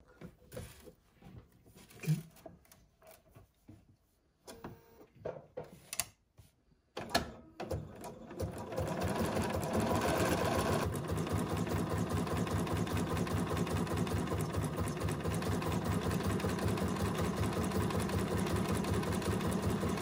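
BERNINA sewing machine sewing a zigzag stitch over a thin cord to make a couched tendril. Light clicks and handling for the first several seconds, then the machine starts about seven seconds in and runs steadily with an even, quick stitching rhythm.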